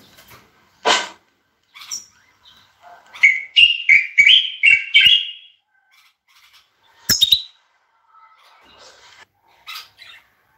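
Caged bulbuls calling, with a loud run of quick whistled notes a few seconds in and scattered short calls around it. A sharp double click about seven seconds in.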